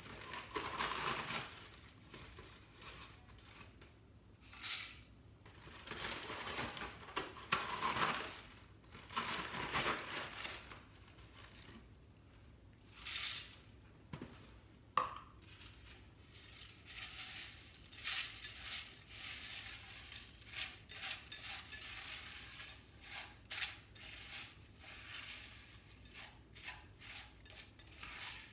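Wheaties flakes poured from the cardboard box into a plastic measuring cup and tipped into a stainless steel saucepan, a dry rustling rush in several pours. From about halfway through, a spoon stirring the flakes into melted chocolate, with many short scrapes and clinks against the pot.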